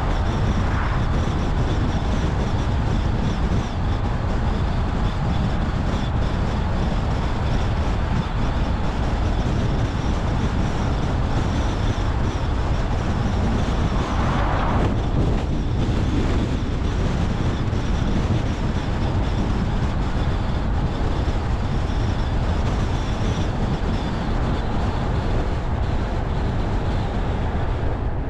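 A car driving at speed, its engine and tyres making a steady low rumble of road noise, with a brief swell about halfway through.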